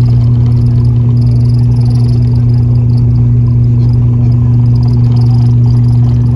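Cabin drone of an ATR 72-600's Pratt & Whitney PW127M turboprops and six-bladed propellers, a loud, steady low hum with a second, higher tone over a rushing noise.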